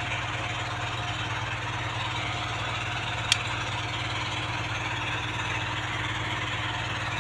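Steady machine-like hum with a low electrical drone, unchanging throughout, and one sharp click about three seconds in.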